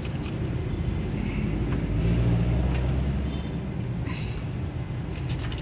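A steady low motor rumble that swells for a second or so about two seconds in, with scattered light clicks.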